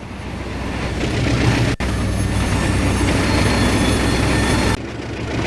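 Train passing at speed: a loud, steady rush of wheels on rails that swells over the first second. The sound breaks off for an instant a little under two seconds in and drops in level near the end.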